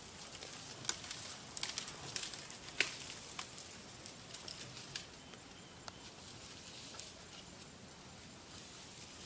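African elephant browsing in dry thornbush: scattered sharp snaps and crackles of twigs and branches breaking, busiest in the first few seconds, then single snaps every second or so.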